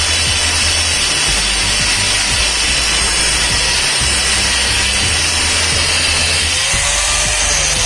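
Angle grinder's abrasive cut-off disc cutting steadily through a thick steel pipe, a continuous grinding hiss, with background music and its stepping bass line playing over it.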